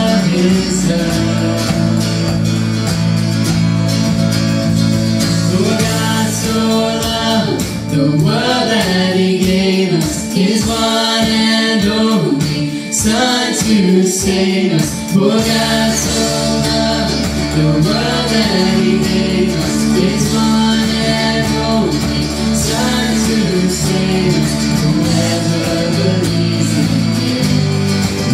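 A song sung by a singer with guitar accompaniment. The low bass drops out for several seconds in the middle and comes back.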